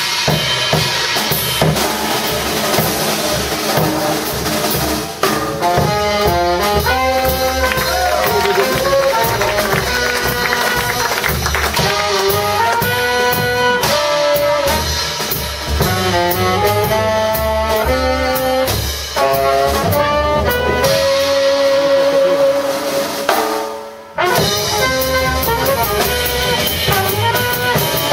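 Live jazz quartet: drums play alone at first, then about five seconds in the horns (trumpet and tenor saxophone) come in with a melody over the drum kit and bass. Near the end the horns hold a long note, the band stops briefly and then comes back in.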